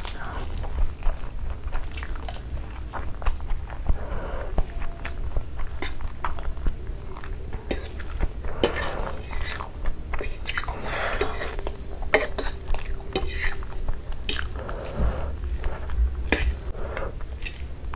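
Close-up mouth sounds of chewing masala Maggi instant noodles, with a metal fork clicking and scraping on the plate as noodles are twirled and lifted.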